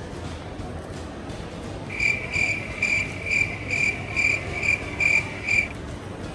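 A high-pitched electronic beep repeated nine times, about twice a second, over a steady low background hum.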